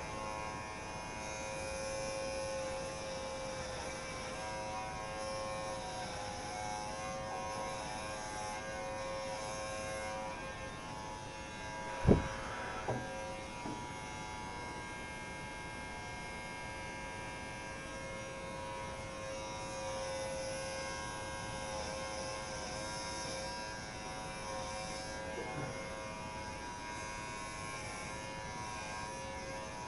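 Electric hair clipper buzzing steadily with a slightly wavering pitch as it is run over a closely shaved scalp. A single sharp knock, the loudest sound, comes about twelve seconds in, followed by a couple of fainter taps.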